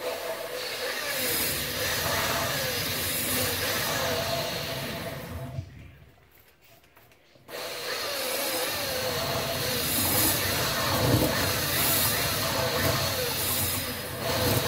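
A power drill spinning a cylinder hone inside the bore of a Zongshen 250cc dirt-bike cylinder, the stones rubbing on the cylinder wall as the motor speed wavers up and down. It runs for about five seconds, stops for about two, then runs again.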